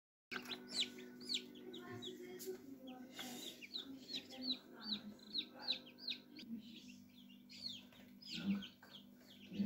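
Newly hatched chicks peeping, many short high cheeps falling in pitch, a few a second, over a steady low hum.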